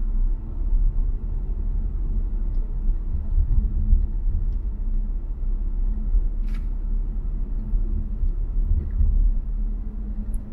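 Steady low rumble of a car driving at low speed, heard from inside the cabin: engine and tyre noise, with one brief click a little past halfway.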